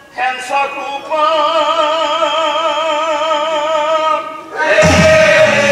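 Male lead singer of a Nagara Naam devotional recital, singing a few short syllables and then one long held note with a wide, even vibrato. Near the end a fuller accompaniment of group voices with a low drum beat comes in.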